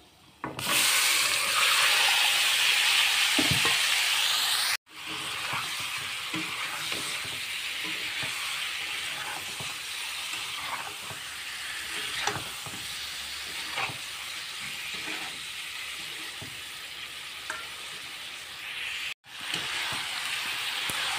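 Marinated fish pieces dropped into hot oil in a kadai, sizzling loudly at first. Then a lower, steady frying sizzle as a spatula stirs and scrapes them around the pan, with short clicks and scrapes throughout.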